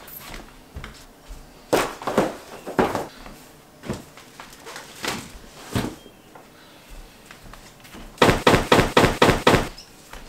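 Boxes and household items being set down and handled on the floor: scattered knocks and thuds, then a quick run of about eight knocks near the end.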